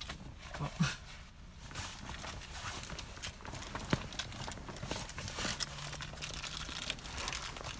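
Irregular clicks, taps and light knocks of hard parts being handled and fitted while installing a car's shift boot and shift knob. A sharp knock about four seconds in is the loudest.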